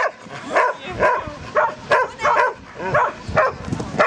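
A dog barking over and over in short, quick barks, about two to three a second, while running an agility course.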